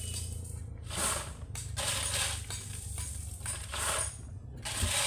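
A steel shovel scraping into a pile of crushed gravel, the stones clattering off the blade, in about four strokes roughly a second apart.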